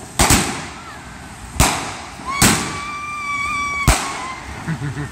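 Aerial fireworks bursting overhead: a quick double bang, then single sharp bangs every second or so. A steady high whistle lasts about a second and a half and is cut off by one of the bangs.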